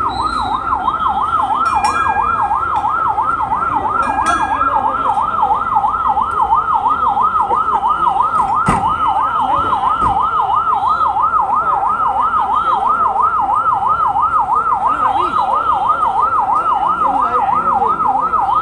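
Fire truck's siren sounding a fast yelp that rises and falls about three times a second without a break.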